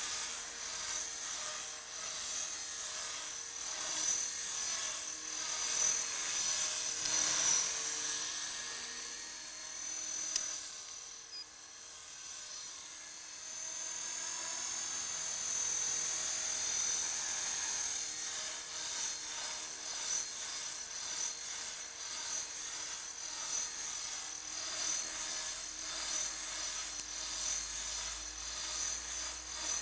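Electric T-Rex 450 clone RC helicopter in flight: a high, steady motor and gear whine over the rotor noise, swelling and fading as it moves, quietest about eleven seconds in while it is high and far off, then louder again.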